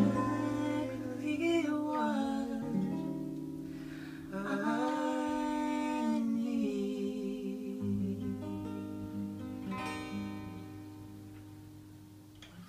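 Acoustic guitar strummed under long, held sung notes as the song plays out its closing bars, fading away near the end.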